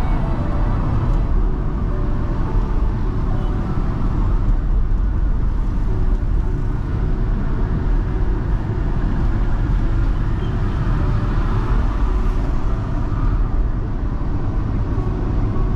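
Car driving through city traffic: a steady low rumble of engine and road noise.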